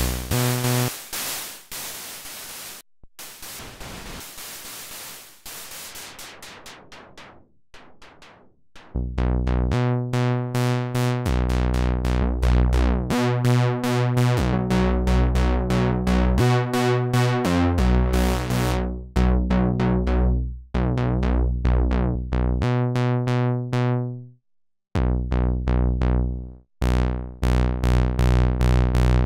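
Behringer Model D analog synthesizer playing a sequenced pattern. For the first nine seconds it is mostly hissing noise chopped into rapid short pulses. Then a run of short, deep bass notes comes in and repeats in a steady rhythm, cutting out briefly about 25 seconds in.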